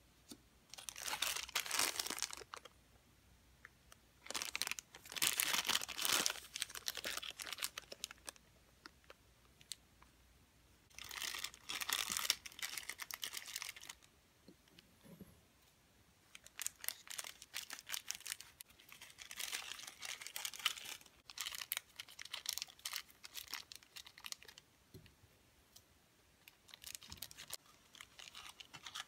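Thin clear plastic packaging bags crinkling and rustling in repeated bursts of one to three seconds as they are handled and torn open, with short quiet gaps between.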